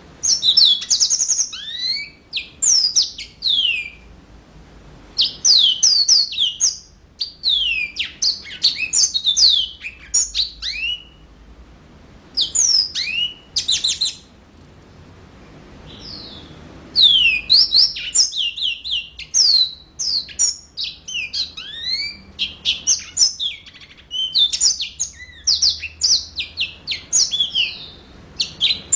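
Yellow-fronted canary (Mozambique canary) singing vigorously: rapid runs of quick, sweeping high notes in phrases of a few seconds, with short pauses between them and a longer pause about halfway through.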